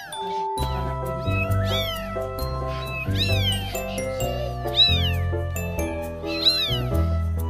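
Persian kittens about two and a half weeks old mewing, several high cries that rise and fall in pitch every second or two, over background music with a steady bass line.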